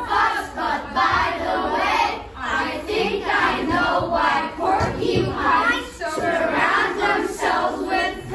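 A class of children reciting a verse together in unison, a choral reading in chanted phrases.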